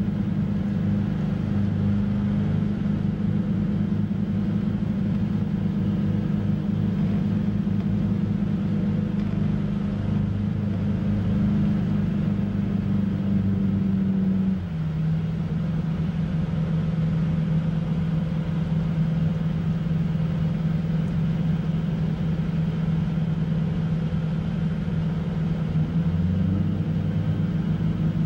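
An engine running steadily with a low hum. About halfway through its pitch drops a step and stays lower, then rises slightly again near the end.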